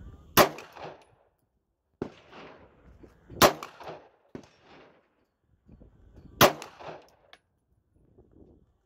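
Glock 26 9mm pistol firing three shots in slow fire, about three seconds apart, each trailing off in a short echo. Fainter sharp knocks come between the shots.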